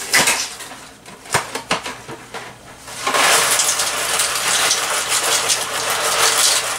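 Dry bow-tie pasta poured from its cardboard box into a pot of boiling water: a steady rush of pieces falling that starts about three seconds in. Before that come a few clicks and knocks as the box is handled.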